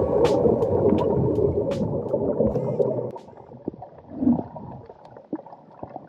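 Muffled underwater sound of bubbling, gurgling water picked up by a submerged camera, with light clicks; it drops away sharply about three seconds in, leaving only faint low sounds.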